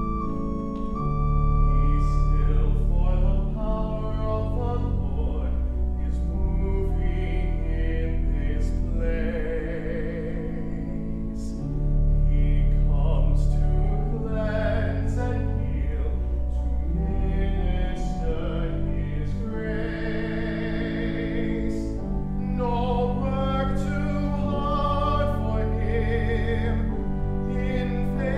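A solo male voice singing in a classical, operatic style with vibrato, over held organ chords.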